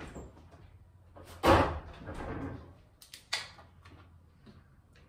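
Refrigerator door shutting with a thump about a second and a half in, followed by two sharp clicks as a milk carton is handled and opened.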